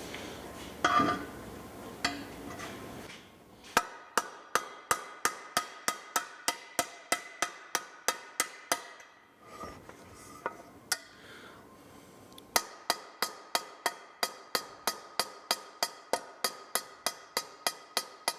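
Hammer tapping a steel stamp into a carbon steel roasting pan to set the maker's touch mark: a few clanks, then steady light blows about three a second with the pan ringing between them. The blows pause briefly near the middle, then resume.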